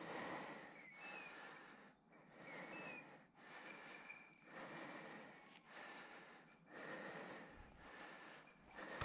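A person breathing close to the microphone, about one breath a second, with a few short high bird chirps now and then.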